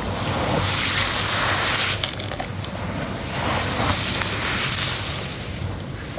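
Cement being crumbled and crunched: a continuous gritty crunching that swells and eases every second or two, with a few small sharp cracks.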